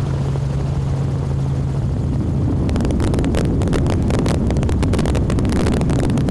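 A steady low engine drone, joined about two and a half seconds in by dense, irregular crackling buffeting, like wind hitting the microphone, over a continuing rumble.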